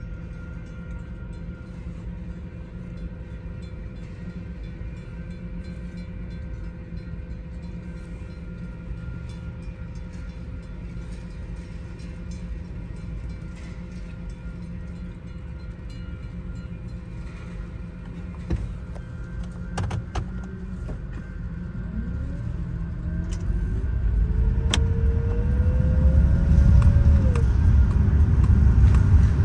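Car cabin rumble with light ticking, typical of rain on the car, while the car waits. About two-thirds of the way through, the car's engine rises in pitch and grows louder as the car pulls away, and the pitch falls back near the end.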